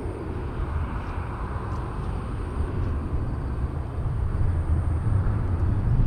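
Steady low rumble of a Boeing 737's jet engines heard across the airfield, swelling a little near the end.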